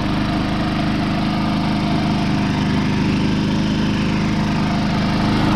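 Predator 3500 inverter generator's single-cylinder engine running steadily at its low eco-throttle idle, a constant even-pitched hum that grows a little louder near the end.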